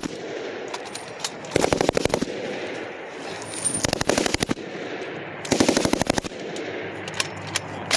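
Short bursts of belt-fed machine-gun fire (M240B and M249 on the range): three bursts of rapid shots, each under a second, about two seconds apart. There are a few faint clicks between them.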